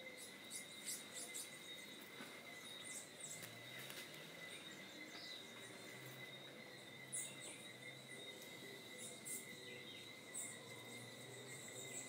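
Scattered short, high bird chirps over a steady, high-pitched insect drone.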